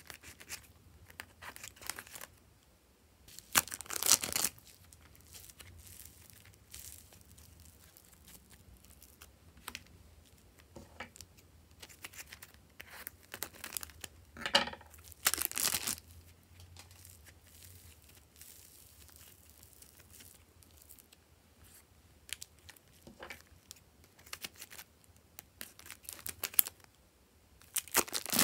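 Plastic clay packets crinkling as they are cut open with scissors, torn and squeezed to push the clay out. The rustling comes and goes, with louder crinkling about four seconds in, around fifteen seconds in and near the end.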